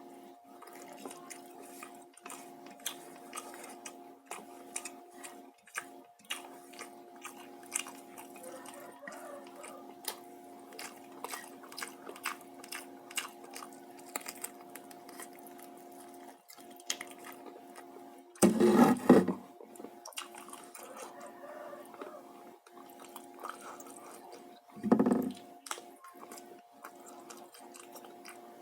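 Close-mic mukbang eating: biting and chewing of fried chicken, fried tofu and rice, with many small crunchy and wet clicks, over a steady low hum. Two louder short sounds stand out, about two-thirds of the way through and again near the end.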